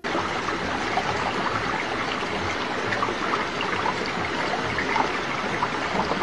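Flowing river water rushing steadily, an even hiss with no break.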